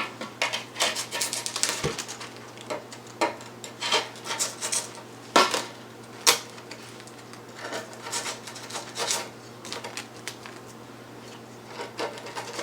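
Blade cutting the excess grip tape away along the edge of a skateboard deck: an irregular series of short scraping strokes of the knife against the gritty tape and the board's edge, the loudest a little over five and six seconds in.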